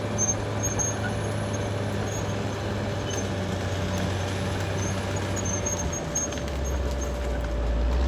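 Caterpillar D6R XL bulldozer's diesel engine running steadily; about six seconds in its note drops deeper and grows stronger.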